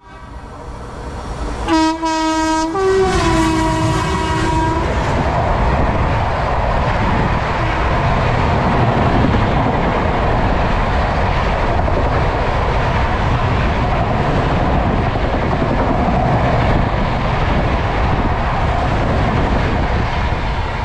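Bengaluru Rajdhani Express overtaking a standing train at close range. A locomotive horn sounds about two seconds in, a short blast followed by a longer, slightly lower one. Then comes the steady loud rumble of the Rajdhani's coaches rushing past on the next track.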